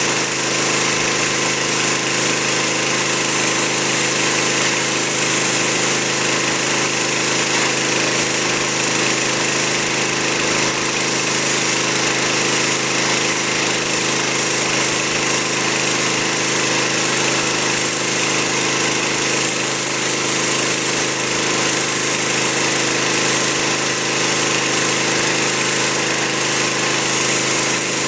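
Pressure washer running steadily, its high-pressure jet hissing hard against wet slate paving stones as the wand sweeps across them.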